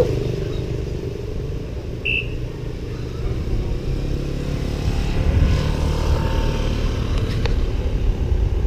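Wind rushing over the microphone and tyre rumble on concrete from a moving bicycle, with a motorcycle engine running nearby. A short high chirp about two seconds in and a few sharp clicks near the end.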